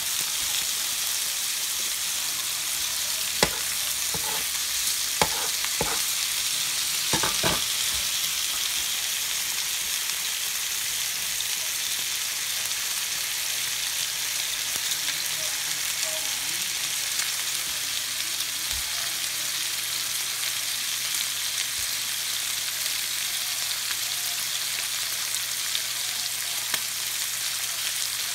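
Bacon frying: a steady sizzling hiss of hot fat, with a few sharp clicks in the first eight seconds.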